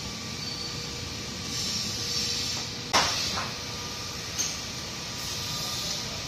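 Steady workshop machinery noise with one sharp metal clank about three seconds in, followed by a lighter knock, as the steel axle housing is handled.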